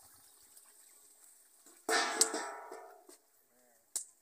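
A sudden metallic clang about two seconds in, a ladle striking the metal cooking pot, ringing for about a second as it dies away. Two short sharp clicks follow, the second just before the end.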